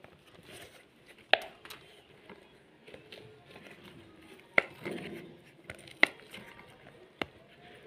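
Bubbles of a large silicone pop-it fidget toy being pushed through by fingers: a handful of sharp single pops, a second or more apart, with soft handling noise between.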